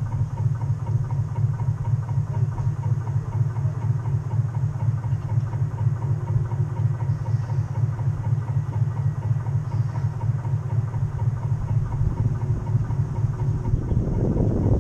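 Steady low throbbing from a radio-controlled scale model boat's drive, picked up through the hull by a camera on its foredeck. A louder, fuller rumble builds near the end as the boat turns.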